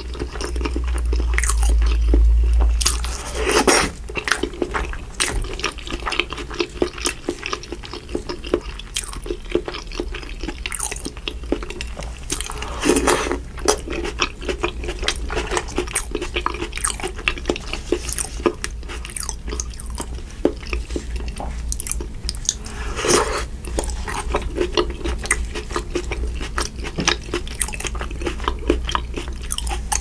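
Close-miked eating: a person biting and chewing seafood-boil food coated in butter sauce, with wet smacking mouth sounds and many small clicks, and a few louder wet moments roughly every ten seconds.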